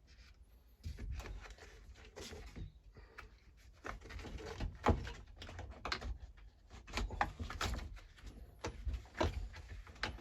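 Irregular clicks and knocks of hedge trimmer parts being handled and fitted together as the frame is put onto the engine.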